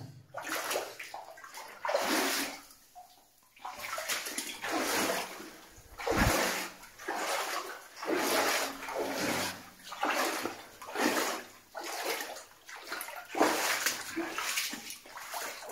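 Footsteps splashing and sloshing through shallow water in a mine level, about one step a second.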